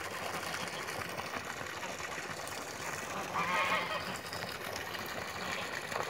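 Steady rush of water running into the pond from its pressure-filter return, with a short pitched call about three and a half seconds in.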